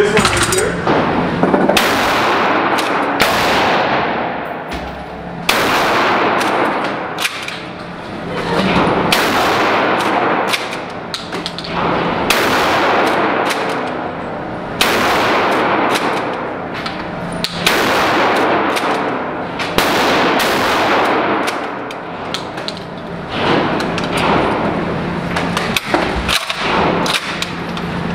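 UTS-15 12-gauge pump-action shotgun firing slugs. It fires a shot every two to three seconds, and each blast rings out in the long echo of an indoor range.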